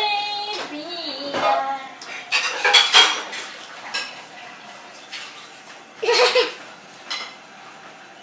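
A young child's wordless babble and vocal sounds, with scattered sharp clicks and knocks in between.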